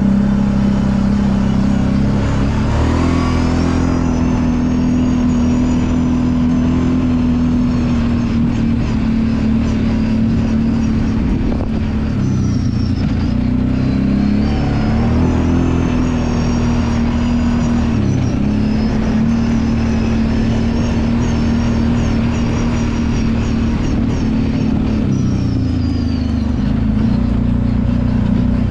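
Kawasaki Brute Force 750 ATV's V-twin engine running at a fairly steady speed under way. The engine note dips and picks back up a few times, briefly easing off the throttle.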